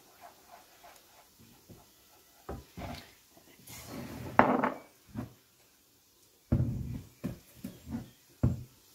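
Wooden spoon stirring a thick lentil-and-bulgur mash in a metal pot and knocking against the pot, followed by several sharp clunks of kitchen containers being handled.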